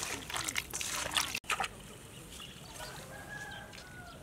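Wet snails clattering and rubbing against each other and the sides of a steel bowl as hands knead them. After an abrupt cut about a second and a half in, it goes quieter, and a rooster crows once in the background near the end.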